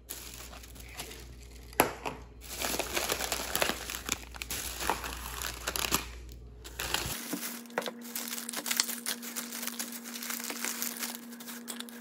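Thin plastic shopping bag rustling and crinkling as snack packets and cardboard chip canisters are pulled out and handled on a countertop, with a sharp knock about two seconds in. A low steady hum comes in about seven seconds in.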